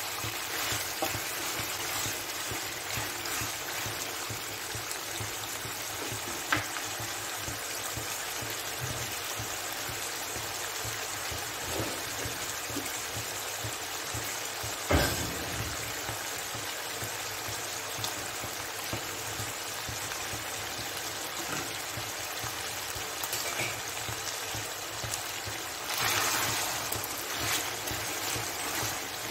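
Mutton pieces frying in hot oil in a nonstick kadhai, a steady sizzling hiss, with two sharp knocks along the way. Near the end a spatula stirs and scrapes the meat through the oil, and the sizzle grows louder.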